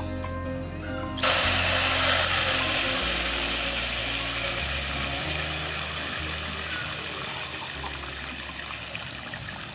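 A thin jet of water from a hand-pump garden sprayer's brass nozzle hissing into a plastic cup, starting suddenly about a second in and slowly fading, over background music.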